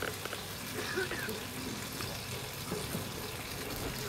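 Steaks sizzling as they fry in a pan: a steady hiss with scattered small crackles and pops.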